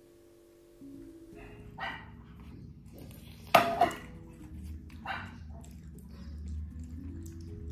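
A dog barking several times in short, separate barks, the loudest about three and a half seconds in, over soft background music.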